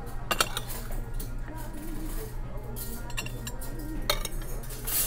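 Cutlery clinking and scraping against a plate and bowl while eating, a handful of sharp clinks, the loudest about a third of a second in and a cluster near the end, over a steady low hum.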